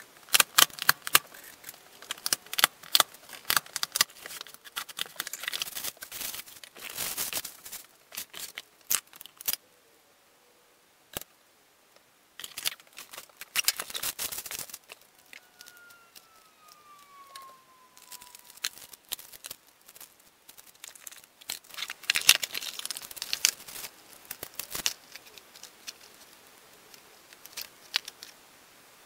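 Cardboard shipping boxes being opened by hand: packing tape ripped and crumpled kraft packing paper pulled out and handled in bursts of crackling and rustling, with a pause of about two seconds a third of the way in. A faint falling tone sounds briefly about halfway through.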